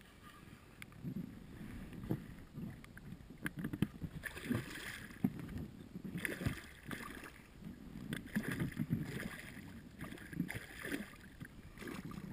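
Water splashing and sloshing close by in irregular bursts, from a hooked pike thrashing at the surface next to an angler's float tube.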